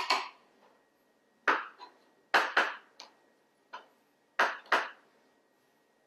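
Kitchen knife slicing through a pickled beet and knocking on a plastic cutting board: about eight sharp knocks, several in quick pairs.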